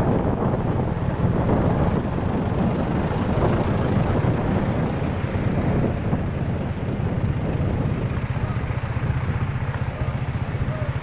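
Idling engines of a queue of stopped trucks and cars: a steady low rumble, with a regular throb that becomes clearer about halfway through.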